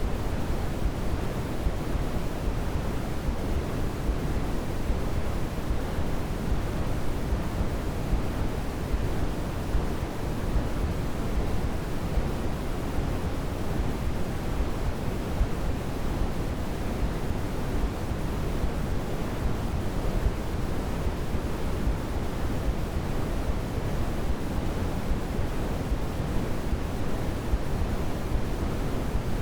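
Steady sleep noise, an even rushing hiss that never changes. It is weighted toward the low end, deeper than true white noise, more like pink or brown noise.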